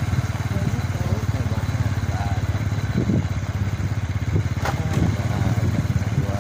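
Motorcycle engine running steadily while riding along, a fast, even exhaust putter that does not change.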